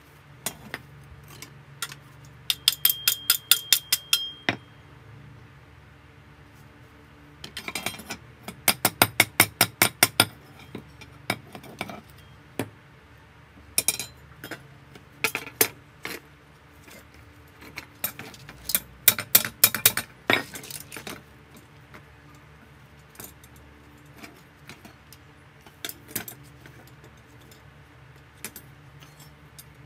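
Rapid metallic tapping and clinking on bent steel rods, in four bursts of about five or six sharp taps a second, with single clinks in between.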